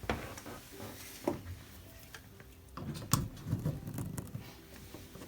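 Scattered handling knocks and thuds, with one sharp click about three seconds in.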